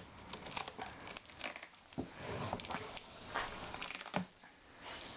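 Faint rustling and crinkling of packaging being handled, with scattered small taps and clicks.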